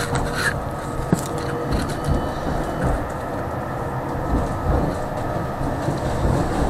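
Tram running along the track, heard from inside the car: a steady low rumble of wheels on rails with scattered clicks. A faint steady whine fades out about two seconds in.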